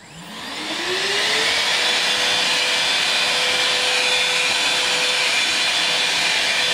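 LG CordZero cordless handheld vacuum cleaner switched on: its motor whine rises over about a second and a half as it spins up, then holds a steady high hum under a rush of sucked air while it picks up crumbs.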